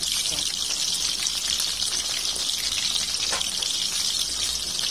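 Small flour-coated fish deep-frying in hot oil in a wok, a steady sizzle with fine crackles throughout: the second fry that crisps them.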